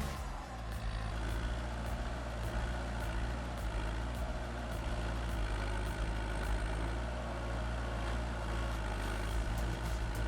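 A heavy vehicle's engine running steadily, with an even low hum.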